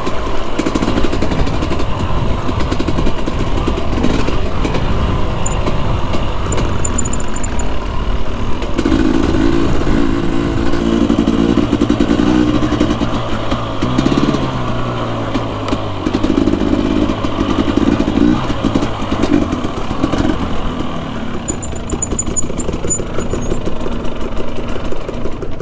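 Husqvarna TE250i two-stroke dirt bike engine running under load, its revs rising and falling repeatedly as the throttle is worked, with stronger revving about a third of the way in and again past the middle.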